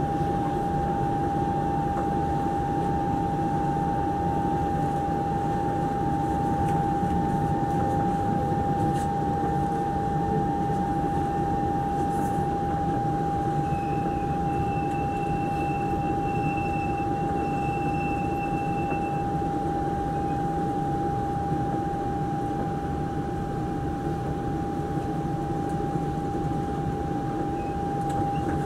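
Steady interior noise of an MRT train carriage: an even rumble with a constant high-pitched hum throughout, and a fainter, higher tone joining for a few seconds in the middle.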